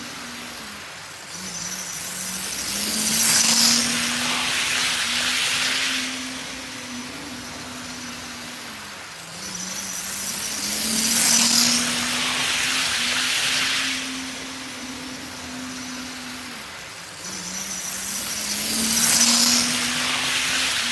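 HO scale model train running laps of the layout, passing close three times, each pass a whirring swell with a high whine that builds and fades, over a steady motor hum that dips in pitch between passes.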